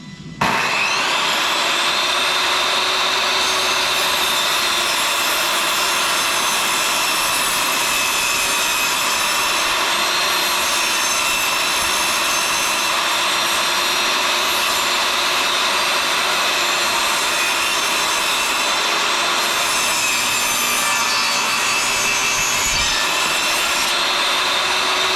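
Table saw running and ripping a cedar board: a steady blade whine over the noise of the cut, starting abruptly about half a second in.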